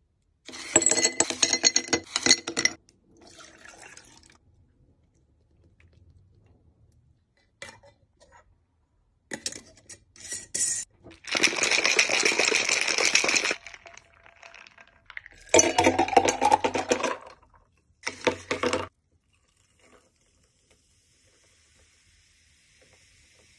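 Ice and liquid clinking and rattling in a glass mason jar in several separate bursts, with about two seconds of steady shaking midway. Near the end, faint fizzing as sparkling water is poured over the drink.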